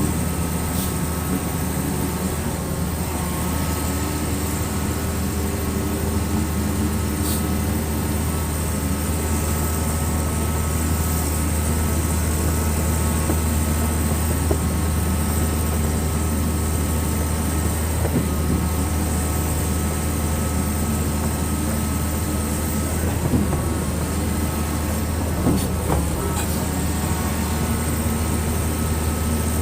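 Excavator's diesel engine running steadily at an even pitch, a low hum with a few faint knocks over it.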